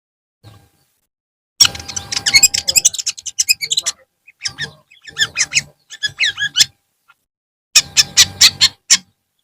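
Long-tailed shrike (cendet) giving rapid, harsh chattering calls in three bursts, the first starting about one and a half seconds in.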